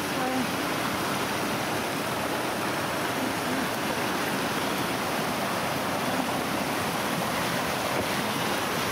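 Steady rush of a rocky creek flowing over boulders and small rapids.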